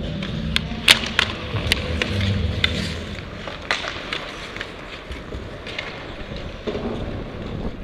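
Ice hockey play up close: skate blades scraping the ice and a run of sharp clacks of sticks and puck during a battle for the puck along the boards, the loudest clack about a second in.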